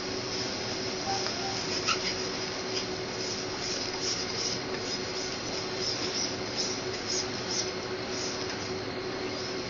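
Steady restaurant background noise: a constant ventilation-like hum with a faint steady tone. A few light clicks of chopsticks and tableware on a plate come through, the sharpest about two seconds in.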